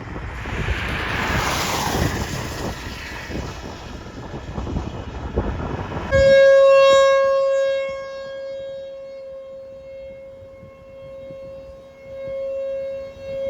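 Wind buffeting the microphone, then, about six seconds in, an outdoor civil-defense tornado siren sounds a steady single pitch. It is loud at first, then fades and swells as it carries on, warning of a tornado.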